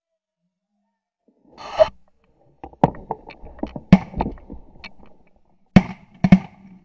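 Shotguns firing into low-flying geese: a rapid, uneven volley of shots from several guns, some faint and some sharp, with two loud close shots about six seconds in as a goose is hit.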